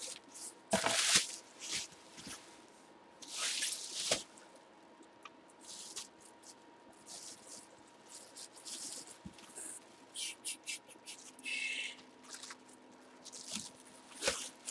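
Plastic bubble wrap crinkling and rustling in irregular bursts as hands pull it from a cardboard box, with a few short clicks.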